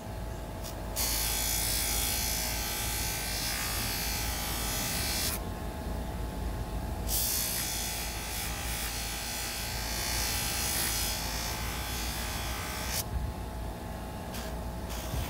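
Motor-driven buffing wheel running steadily while a steel sawzall-blade knife is polished on it with white compound: a rushing rub while the blade is held to the wheel, dropping away to the bare motor hum when the blade is lifted off at the start, about five seconds in, and again near the end.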